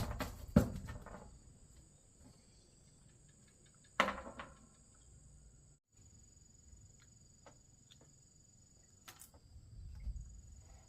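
Faint steady high-pitched insect chirring, with a few knocks at the start and one sharp, louder sudden sound about four seconds in that fades quickly.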